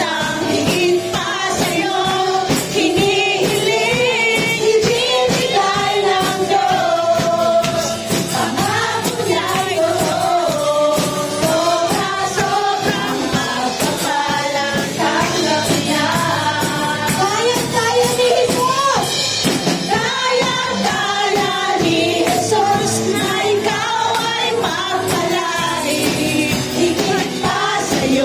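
A live worship song: a group of women's voices singing together over instrumental accompaniment with a steady beat.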